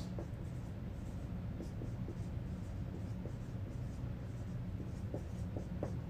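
Marker writing on a whiteboard: faint short scratchy strokes as words are written, over a steady low room hum.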